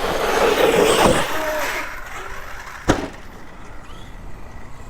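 Arrma Outcast 8S RC car's brushless motor and tyres running, with a brief falling whine, then a single sharp knock about three seconds in.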